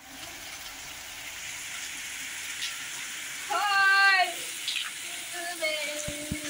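Heavy rain pouring onto a concrete courtyard, with water streaming from the roof spouts. About three and a half seconds in, a voice calls out loudly once, wavering in pitch, and fainter voices come in near the end.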